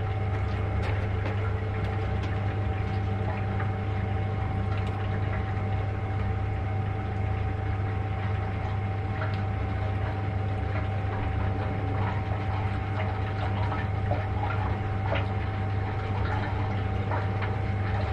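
Small brewing pumps running with a steady low hum and a faint higher whine, while sparge water trickles and splashes as it circulates into the mash tun.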